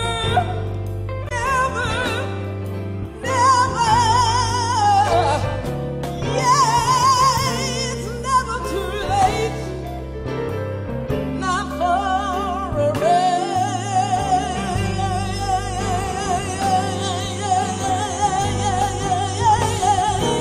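Gospel song: a voice sings long, wavering notes over a band with a steady bass line, holding one long note through the second half.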